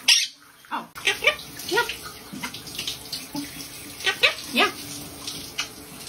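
Monk parakeet screaming loudly at the start, then giving a string of short, rising squawks and chirps, over the steady rush of running shower water.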